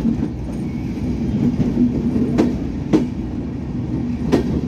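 Bangladesh Railway intercity passenger coaches rolling past close by: a steady rumble of wheels on rail, with sharp clickety-clack wheel clicks over a rail joint, two about half a second apart around the middle and another near the end.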